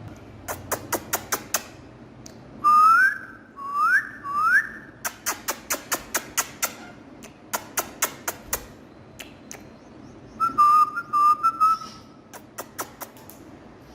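Pet parrot whistling and clicking: runs of sharp clicks, three short rising whistles a few seconds in, and a longer wavering whistle near the end.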